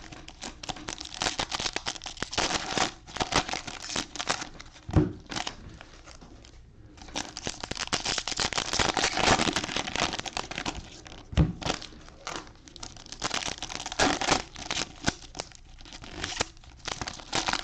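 Foil trading-card pack wrappers being torn open and crinkled, a continuous crackle with a couple of sharp knocks as the packs are handled.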